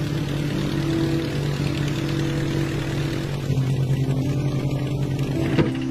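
Light propeller aircraft's piston engine running steadily, over soft background music. A brief click near the end.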